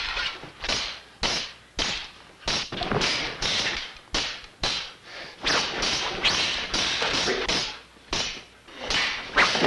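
Sound effects of a staged fight: a quick, irregular run of hits, thuds and swishes, about two a second.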